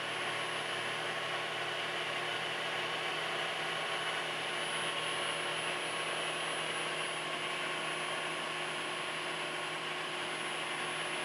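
Milling machine running steadily, its end mill side-milling the cast iron cross slide of a Monarch lathe, with a steady hum and a few constant tones over the cutting noise.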